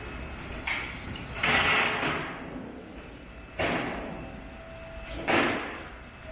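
Hydraulic roll-forming machine running as a sheet-metal standing seam panel feeds through its forming rollers. A faint steady whine sits under a series of harsh, noisy surges that come about every second and a half.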